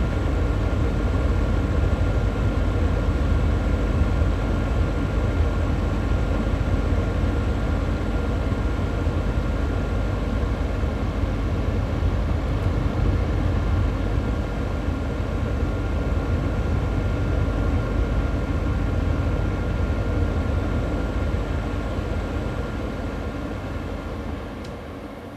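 Xiaomi Mi Air Purifier fan running on high flow: a steady rush of air with a faint whine. Near the end the sound fades steadily as the fan winds down after being switched off.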